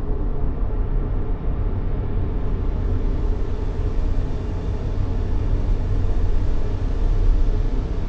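Steady baby-sleep white-noise track: an even, unbroken hiss weighted heavily toward a deep rumble, with little in the high end.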